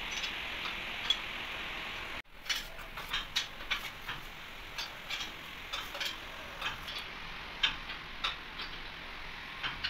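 Steady hiss with a few light clicks that cuts off abruptly about two seconds in. Then irregular sharp ticks and clicks, a few a second, over a quieter background.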